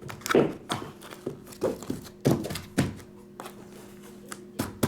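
Trading card packs being tapped and stacked on a tabletop: a series of about six soft, uneven knocks as the stack is squared up.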